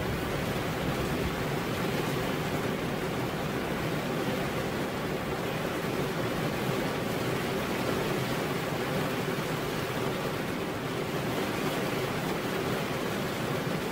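Heavy rain pouring steadily onto a veranda roof.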